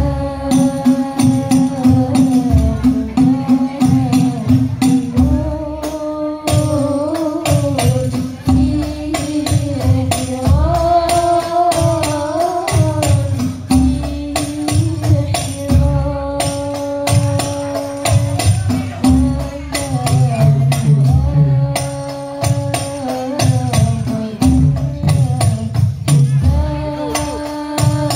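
Banjari ensemble performing a sholawat: several girls' voices singing a slow, held melody through microphones, over rebana frame drums beating a steady interlocking rhythm.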